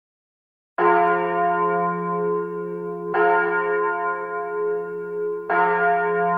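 A deep bell tolling three times, about two and a half seconds apart, starting about a second in, each stroke ringing on into the next.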